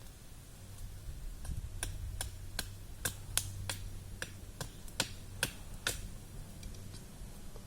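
A run of about a dozen sharp clicks or taps, two to three a second, starting about a second and a half in and stopping near the end, over a steady low hum.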